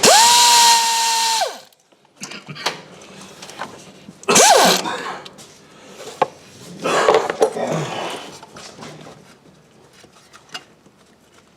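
Handheld power tool running at a steady high speed for about a second and a half, then winding down in pitch when released, as it backs out a spool valve mounting bolt. A shorter burst a few seconds later also winds down quickly, and there is a noisier spell of tool work a little later, with scattered metal clicks.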